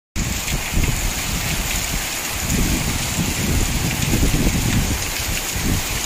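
Spray from a rain-swollen waterfall coming down like heavy rain, a steady rushing hiss, with wind gusting over the microphone.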